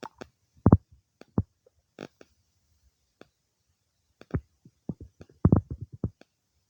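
Human stomach gurgling while digesting a meal: irregular short pops and gurglings with gaps between them, and the loudest cluster of gurgles about five and a half seconds in.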